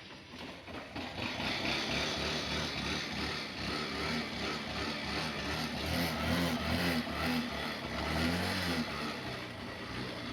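Motorcycle engine running and pulling away. Its noise builds over the first couple of seconds, and its pitch rises and falls with the throttle further on.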